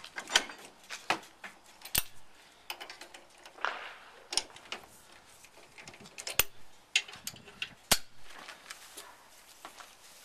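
Hand ratchet wrench clicking in short irregular runs, with sharp metallic clinks, as a bolt on a ProPride weight-distribution hitch head is turned.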